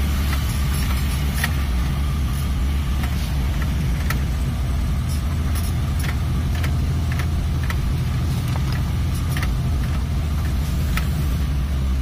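Car driving slowly on a rough unpaved road, heard from inside the cabin: a steady low engine and road drone with scattered light clicks and rattles.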